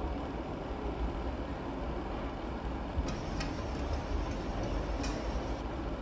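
Chef's knife cutting a small red onion on a plastic cutting board, a few sharp knife taps on the board from about halfway through. Under it a steady low rumble.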